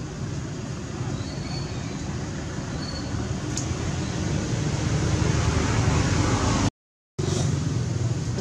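Steady low rumble and hiss of outdoor background noise, slowly growing louder, cutting out completely for about half a second near the end.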